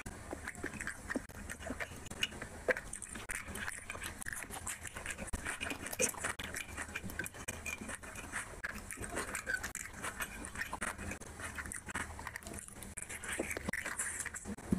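Close-up wet chewing and lip smacking of a man eating rice and chicken curry by hand, with many short irregular mouth clicks.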